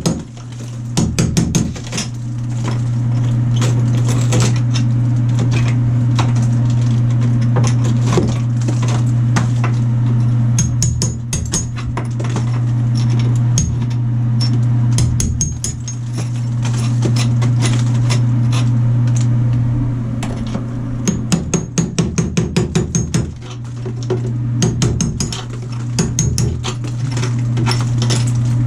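A power tool running steadily as it cuts and chips away thick tile and mortar in a shower wall, stopping several times for short runs of quick, sharp knocks.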